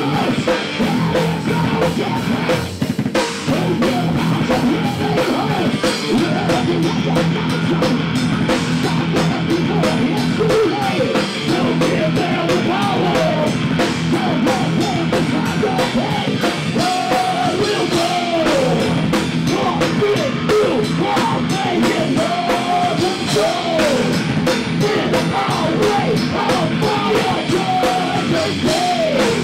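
Heavy metal band playing live: electric guitars and a drum kit under a male singer's vocals.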